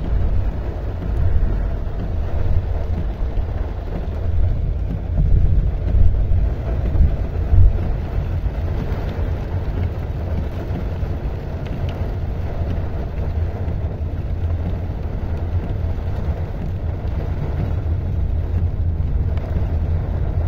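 Hailstorm: heavy rain and hail coming down on a flooded street, with wind buffeting the phone's microphone in a steady low rumble. Louder gusts come about four to eight seconds in.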